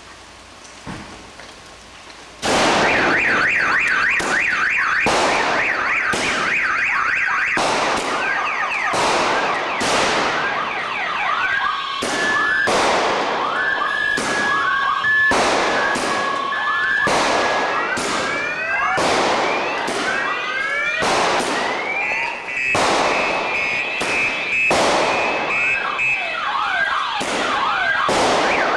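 Firecrackers going off in a long barrage of loud bangs, with car alarms wailing and warbling underneath. The barrage starts suddenly about two and a half seconds in, after a quieter hiss and a single pop.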